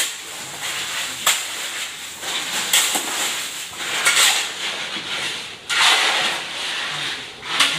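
Shovels scraping and scooping wet concrete mix across a concrete floor in repeated strokes every second or so, some of them beginning with a sharp clink of the metal blade.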